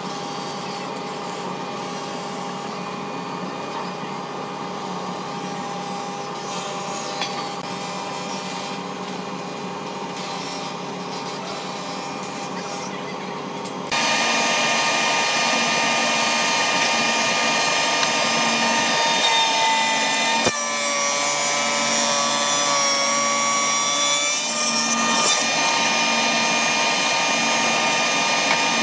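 Woodworking machinery running steadily, with a constant hum made of several steady tones. About fourteen seconds in, the sound jumps to a louder, higher-pitched noise from a four-sided planer/moulder running with its cutter heads spinning. There is one sharp click a few seconds later.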